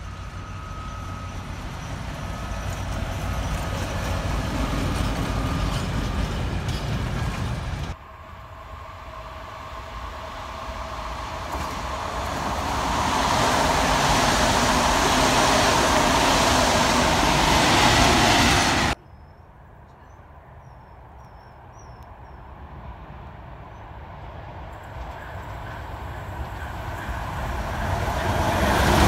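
Trains passing on the line, in three cut-together takes. First a locomotive approaching with a tank wagon, growing louder. Then passenger coaches rolling past close by, the loudest part. Then another locomotive approaching, growing louder toward the end.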